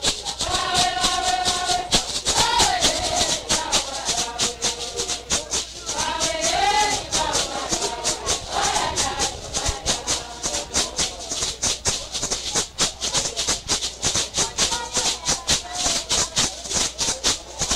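Music with a fast, even shaker rhythm and a voice singing in phrases over it.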